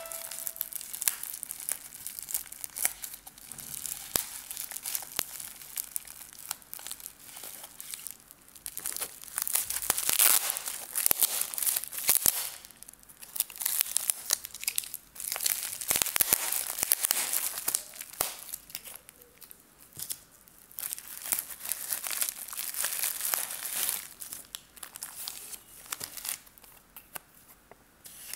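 Plastic bubble-wrap pouch and a clear plastic bag being handled and opened, crinkling and crackling in spells with short lulls between them.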